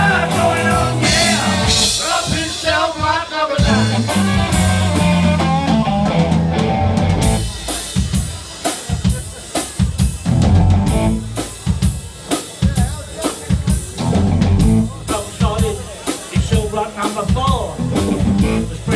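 Live rock band playing an instrumental stretch with no singing: drum kit, bass and electric guitar, with the drums most prominent. About seven seconds in, the sustained notes thin out and the drums and bass carry on with a sparser, punchier beat.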